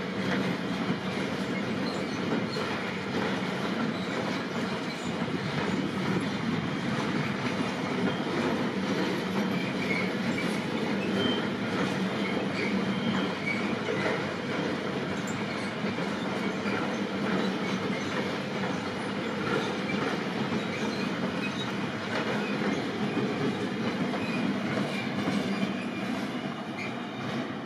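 A train rolling past on the track: a steady noise of wheels on rail with scattered short wheel squeals, beginning to fade near the end.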